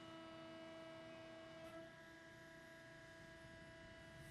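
Faint steady hum with a high, even whine from a 1997 Cincinnati 135-ton CNC hydraulic press brake's hydraulic pump motor running while the ram is at rest.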